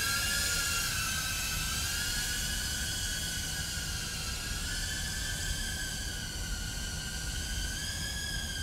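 Tank95-HD 2-inch FPV drone's motors and propellers whining in flight, a high pitch that dips about a second in and swells slightly again later as the throttle changes.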